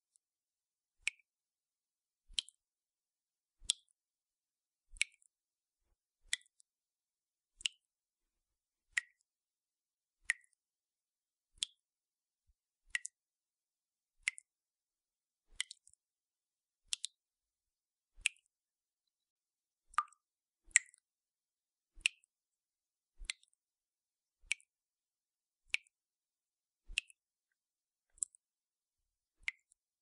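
Dripping tap: single water drops falling at a steady, even pace, about one every 1.3 seconds, each a short sharp drip. About twenty seconds in, two drops fall close together, the second the loudest of all.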